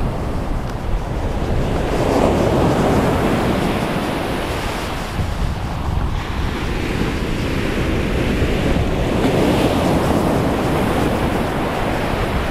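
Ocean surf breaking and washing up the beach, swelling twice with the waves, with wind buffeting the microphone underneath.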